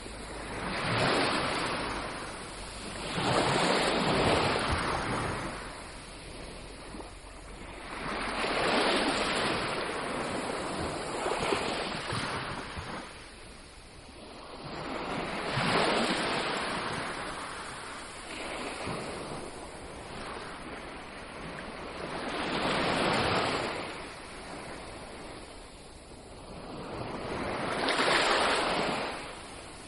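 Waves breaking and washing on a beach, each one swelling up and fading away, about six surges in half a minute.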